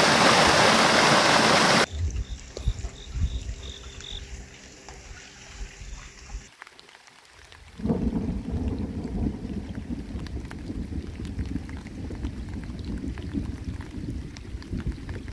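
A mountain stream rushing loudly for about the first two seconds. After an abrupt cut, a thunderstorm: rain falling with low rumbles of thunder, dropping briefly to near silence about halfway through.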